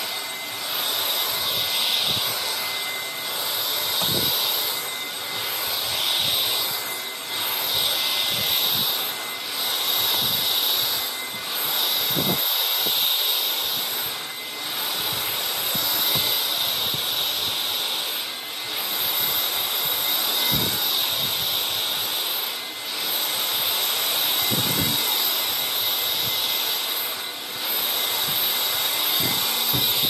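Stick vacuum cleaner running with a steady high whine as its floor head is pushed back and forth over carpet, the sound swelling and dipping every couple of seconds with each stroke.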